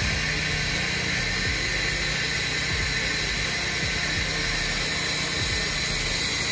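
Steady low hum with a constant hiss, unchanging throughout.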